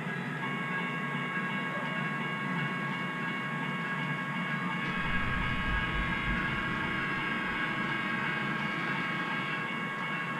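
HO scale model train approaching, its sound-equipped diesel locomotives giving a steady running sound with several high, even tones. A low rumble comes in for a couple of seconds midway.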